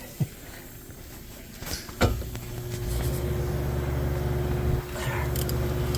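A click about two seconds in, then a steady low mechanical hum that dips briefly near the end.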